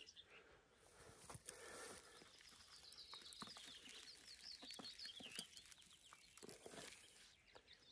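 Near silence: a distant small bird chirping faintly, with soft rustles and ticks of soil and potato stems being pulled from a plastic bucket.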